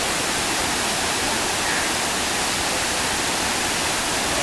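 A steady, even rushing hiss that holds one level throughout, with no breaks or separate events.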